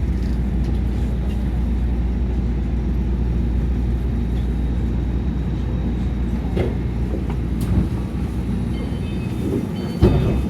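Inside a Tama Monorail car running along its beam on rubber tyres: a steady low running rumble. The deepest part of the rumble thins about eight seconds in, and a single sharp knock comes near the end.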